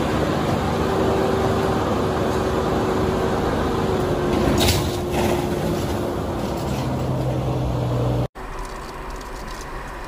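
A box truck lying on its side is pulled back onto its wheels. About four and a half seconds in it lands with a crash and a clatter of spilling cargo, over a steady engine hum. The sound cuts off suddenly near the end, giving way to quieter road noise from a moving car.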